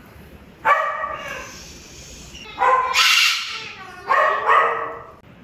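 White cockatoo giving loud, short calls: three bursts about a second or so apart, the last one doubled.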